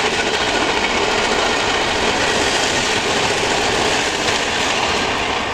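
Freight train of open-top coal hopper cars rolling past, the steady, loud noise of steel wheels on the rail with faint clicks over the joints.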